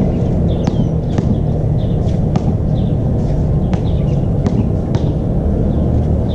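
A basketball bouncing and hitting the court now and then, as irregular sharp knocks, over a steady low rumble with a few short high chirps.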